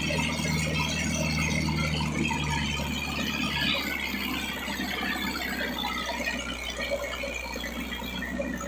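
Sonalika DI 750 III tractor's diesel engine labouring steadily under heavy load while it drags a double disc harrow through loose soil. The engine note changes about four seconds in.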